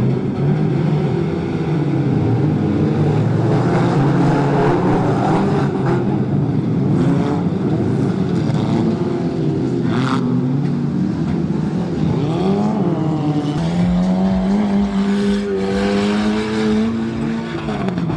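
Several stock-car engines running hard together, their revs rising and falling as the cars race. There is a brief sharp noise about ten seconds in, and later one engine holds fairly steady, slowly climbing revs for a few seconds.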